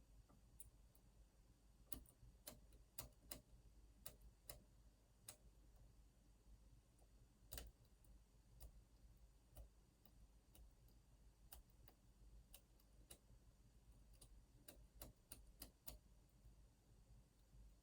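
Faint, irregular metal clicks of a lock pick and tension tool working the pins of an Opnus TEX lock cylinder, coming in small clusters with pauses between.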